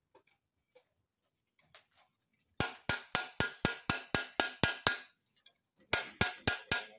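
Hand hammer striking metal on a cylinder liner in an Isuzu Panther diesel engine block, the rotated liner being tapped down into its bore. A quick run of about ten ringing metallic blows, about four a second, starts a couple of seconds in, then after a short pause four more.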